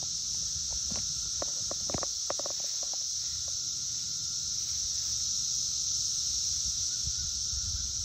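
Chorus of periodical cicadas: a steady, continuous high-pitched drone, with a few faint short clicks a second or two in.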